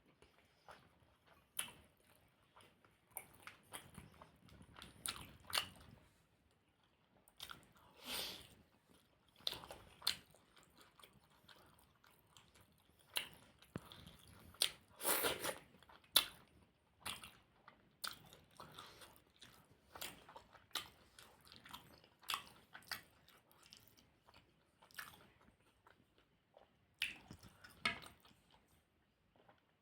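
Close-miked chewing of puri (fried bread) with potato curry: irregular wet mouth smacks and clicks, a few bites louder than the rest.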